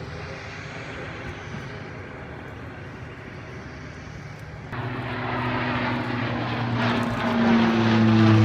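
Parallel-hybrid propeller demonstrator aircraft passing in a display flypast, engines and propellers humming. The sound steps up abruptly about halfway through and keeps building, ending in a strong low propeller drone that drops slightly in pitch.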